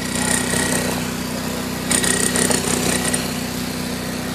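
A small engine running steadily, with two short stretches of hiss over it, one at the start and one about two seconds in.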